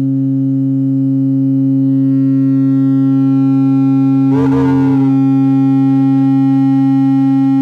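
Steady sine test tone of about 270 Hz played very loud through a small 3D-printed fourth-order bandpass (half-horn) subwoofer model with its cabin door sealed. The tone grows a little louder over the first couple of seconds as the amplifier is turned up.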